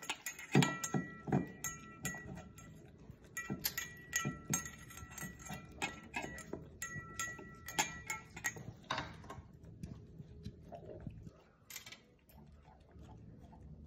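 An Italian greyhound and a doodle eating their food from stainless-steel bowls: irregular crunching and clicking, with clinks against the metal bowls that ring briefly. The clinking thins out after about nine seconds.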